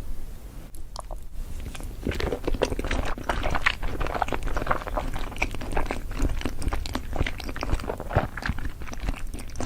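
Close-miked chewing and biting of crunchy food: a thick run of irregular crackling crunches that picks up about two seconds in.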